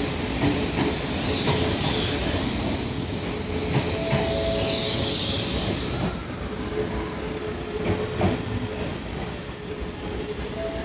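Odakyu 8000 series chopper-control electric train pulling out: loud wheel-on-rail rolling noise with clicks from the rail joints as the last cars pass. It fades away about six seconds in.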